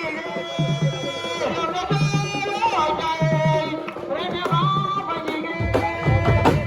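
Music with hand drums keeping a steady beat, about three strokes every two seconds, under a sustained melodic line; a heavier low drum swell comes near the end.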